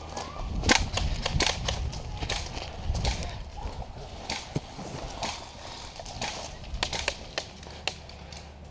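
Airsoft guns firing scattered single shots: irregular sharp snaps and cracks, over a low rumble of wind or handling on the microphone.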